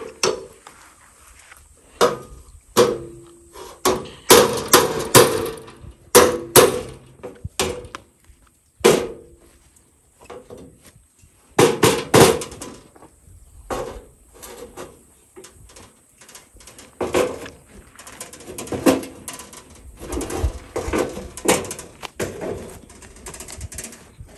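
Hammer striking the bent sheet-steel body panel of a Power King garden tractor against a dolly to straighten it. The blows are irregular, clanging metal on metal with a short ring, heaviest in the first half.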